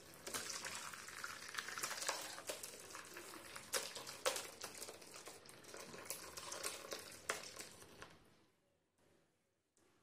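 Split milk (whey and soft chenna curds) pouring and splashing from a steel vessel into a cloth-lined bowl as the whey is strained off, with a few sharp clicks along the way. The pouring stops about eight seconds in.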